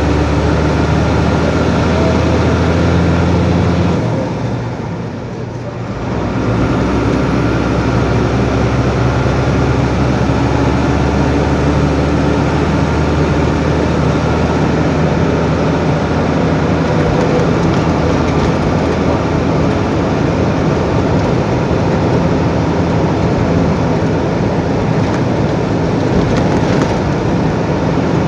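Truck engine running under way with steady road noise, a continuous drone that dips briefly about five seconds in.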